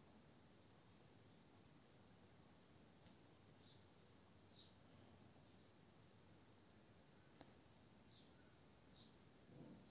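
Near silence: faint room hiss with small high chirps recurring every half second to a second, and one light tick about seven seconds in.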